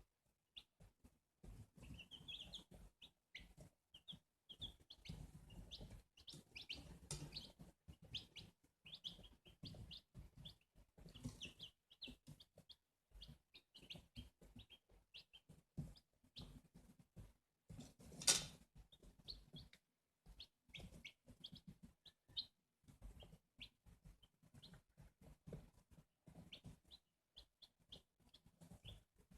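Newly hatched chicks peeping faintly in many short, high chirps, with low knocks and rustling and one sharp click about two-thirds of the way through.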